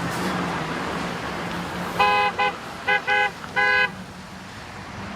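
A horn sounding five short honks in about two seconds, over a steady low rumble.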